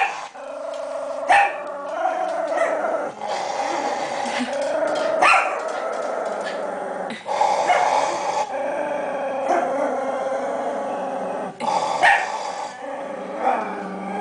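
Miniature pinscher growling steadily in long runs, stopping briefly for breath, with a few short sharp barks in between. It is guarding its baby doll against a reaching hand.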